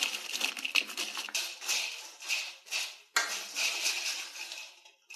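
White plastic spatula stirring and scraping French fries around a small metal wok, with irregular clattering strokes. The stirring breaks off briefly about three seconds in, then resumes.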